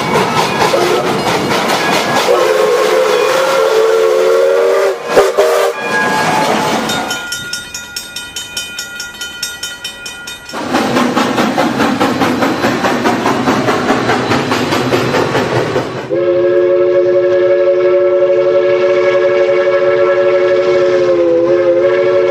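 Moving steam train with loud rushing rail noise. A whistle sounds briefly between about two and five seconds in, and a long steady whistle of several notes at once holds from about sixteen seconds to the end. The sound changes abruptly a couple of times in between.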